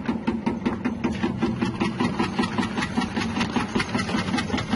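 Electric cassava slicing machine running, its 180-watt motor humming steadily while the spinning blade cuts a cassava root fed down the tube, with a rapid, even ticking from the cuts.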